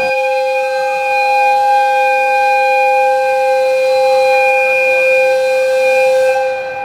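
One long blast of an EF55 electric locomotive's whistle: a steady, loud two-note chord that holds without changing pitch and fades out near the end.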